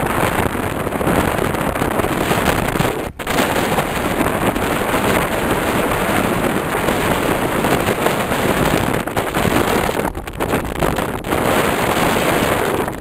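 Wind rushing and buffeting on the microphone of a camera riding on a moving vehicle: a loud, steady, crackling roar that cuts out for an instant about three seconds in.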